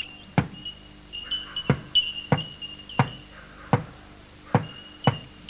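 Axe chopping into timber: about seven sharp blows at a steady working pace, over a thin, steady high-pitched tone that sounds in stretches.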